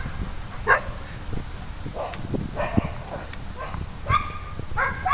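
Dogs barking in short, pitched yips, about six of them spread through a few seconds, with a few soft low knocks between them.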